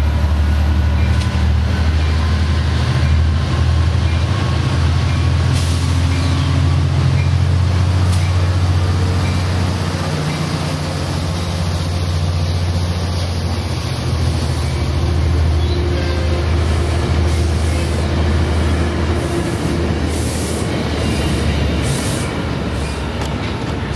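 Diesel-hauled passenger train moving through the station, its locomotive engine a steady low rumble over rail noise that eases slightly toward the end.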